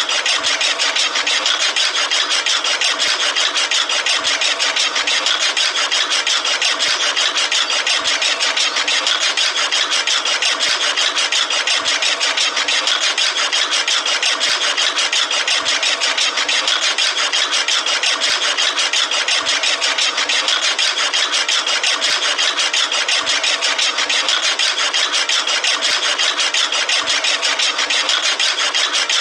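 Small toy DC motor running at a steady high buzz, driving a homemade miniature chaff cutter's flywheel through a rubber-band belt as grass is fed in to be chopped.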